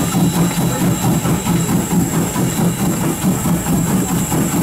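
Norfolk and Western #475, a 4-8-0 steam locomotive, running along the line heard up close from the engine itself: a loud, steady, rhythmic rumble pulsing several times a second.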